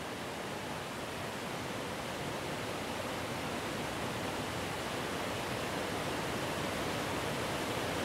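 Steady rushing roar of a tall waterfall, water dropping some 85 m, growing slowly louder.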